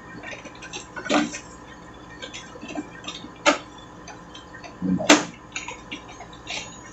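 Plastic clicks and knocks from handling the rear housing of an Epson L360 inkjet printer while an external waste-ink maintenance box is fitted to it, with light crinkling of disposable plastic gloves. The sharpest knock comes about five seconds in.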